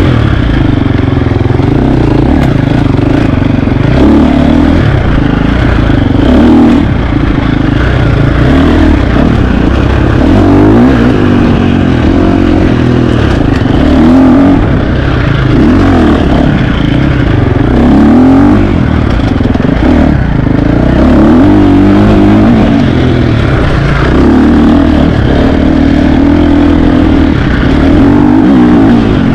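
KTM 350 XC-F four-stroke single-cylinder dirt bike engine being ridden hard, the revs rising and falling every second or two with repeated throttle blips and shifts.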